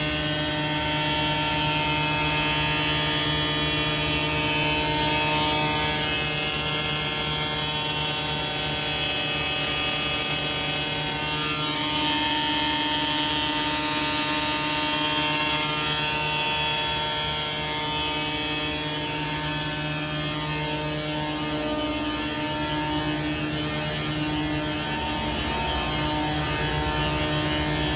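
Truck-mounted pneumatic blower running steadily, pushing air through a frac-sand trailer's piping: a constant machine drone with a layered whine, a little quieter about two-thirds of the way through.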